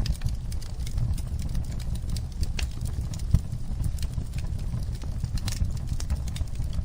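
Wood fire burning in a fireplace: a steady low rumble with irregular crackles and pops, one sharper pop about halfway through.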